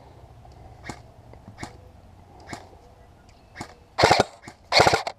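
Airsoft guns firing: scattered single shots about once a second, then two short, loud rapid-fire bursts near the end.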